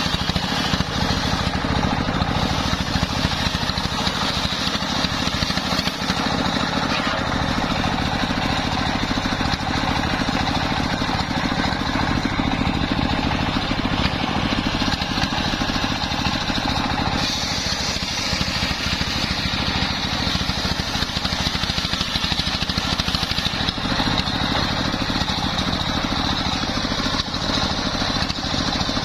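Homemade circular saw bench, its blade belt-driven by a stationary engine, ripping a log lengthwise: the engine runs steadily under the rasping noise of the blade cutting through the wood.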